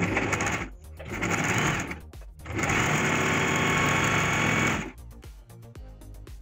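Usha Janome electric sewing machine stitching through fabric in three short runs. The last and longest run lasts about two seconds and stops just before the end.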